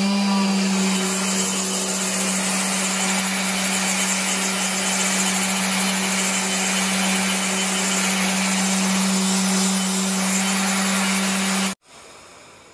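Festool random orbital sander running at speed with a steady hum, its 120-grit pad grinding cured epoxy off the edges of a wooden board. The sound cuts off abruptly near the end.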